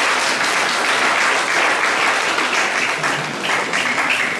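A crowd applauding: dense clapping that thins into scattered separate claps near the end.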